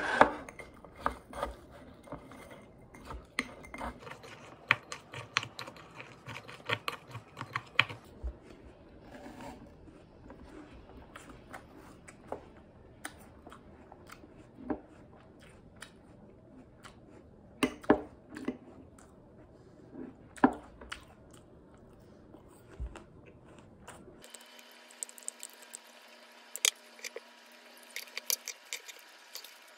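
Breakfast eating sounds: a spoon clinking and scraping in a glass cup of yogurt, a fork tapping on a ceramic plate, and chewing of crisp apple pieces, heard as scattered, irregular clicks and taps.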